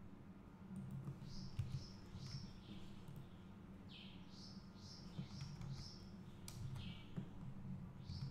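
A bird chirping faintly in quick runs of short chirps, about two to three a second with pauses between the runs, over a low steady hum; a click sounds once or twice.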